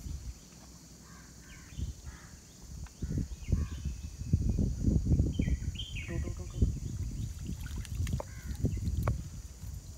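Birds chirping in short falling calls over an uneven low rumble with irregular knocks, which grows louder about three seconds in.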